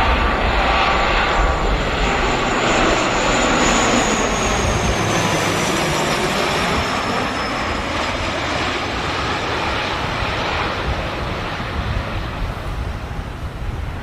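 Airplane flying over: a steady engine rush with a high whine that slides down in pitch, growing gradually fainter toward the end.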